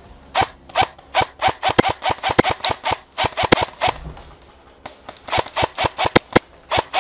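Airsoft electric rifle, an Ares Amoeba AM-013, firing quick single shots, several a second, in two strings with a short break about four seconds in.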